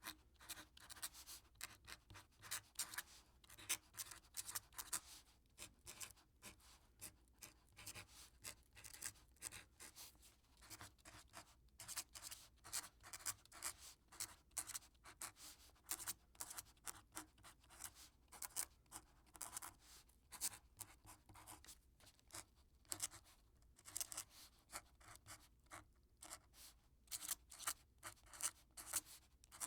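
Quill pen nib scratching across paper in quick, uneven strokes, continuous writing with brief pauses between words.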